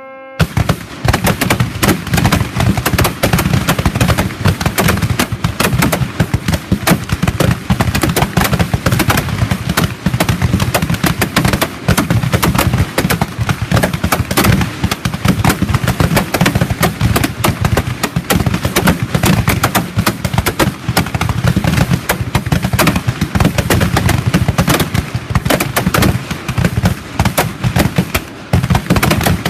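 A team of shooters firing black-powder cap-and-ball revolvers together, a rapid barrage of overlapping shots. It starts about half a second in and does not let up.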